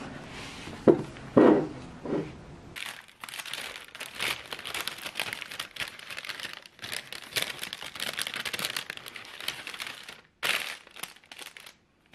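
Three knocks in the first two seconds, then a long stretch of dense crinkling and rustling as something crinkly is handled, with a brief break and one last burst near the end.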